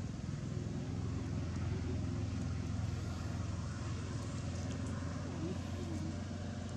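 Steady low background rumble with faint distant voices.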